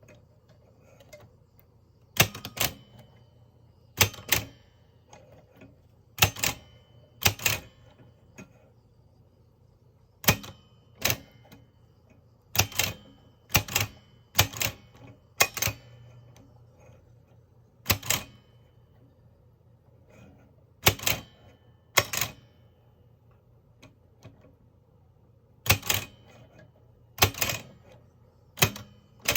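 Mignon Index Typewriter No 4 typing: sharp mechanical clacks, often in quick pairs, each time the print key is pressed after the pointer picks a letter. The strokes come slowly and irregularly, a second or two apart.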